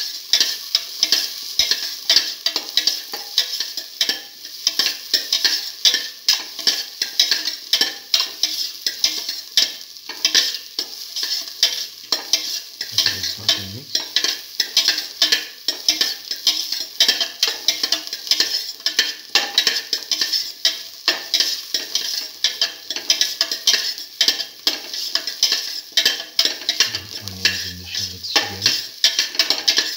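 Sliced onions and shallots sizzling in hot oil in a stainless steel pan while being stirred, the utensil scraping the pan in quick repeated strokes about two a second. They are being sautéed until the shallots lose their pink colour.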